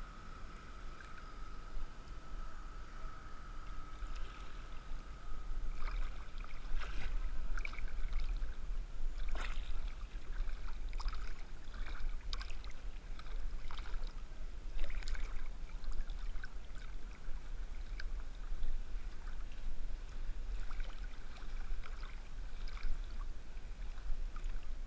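Water splashing and lapping right at a camera held at the river's surface by a swimmer. Irregular splashes from swimming strokes start about six seconds in, over a constant low rumble of water against the housing. A faint steady whine is heard for the first five seconds or so.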